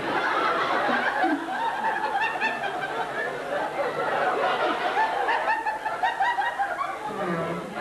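Audience laughing and chuckling, many voices together.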